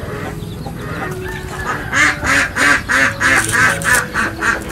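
Domestic fowl calling: a run of about nine quick, evenly spaced calls, three or four a second, starting about two seconds in.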